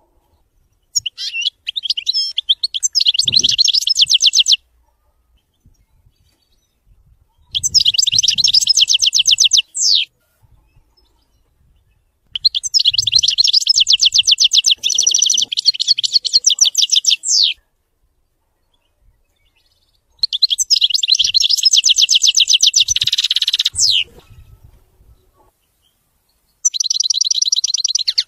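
European goldfinch singing a widani-style song: five phrases of fast, high trilled notes, each a few seconds long, separated by pauses.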